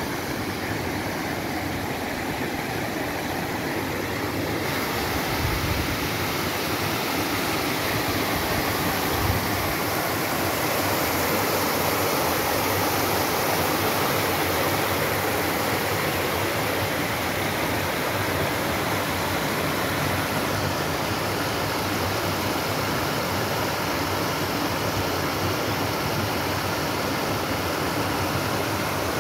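Small waterfall pouring down a rock chute into a rocky stream: a steady rush of falling water that grows louder over the first ten seconds or so.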